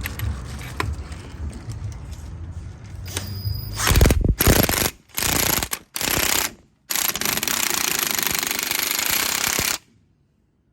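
Impact wrench hammering in bursts as it drives down the screw of an AC hose crimper, crimping a fitting onto refrigerant hose: three short bursts, then one long run that stops suddenly. Before it, a low rumble and a few light clicks.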